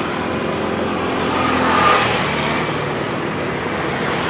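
Road traffic noise: a steady wash of passing cars, swelling slightly about halfway through.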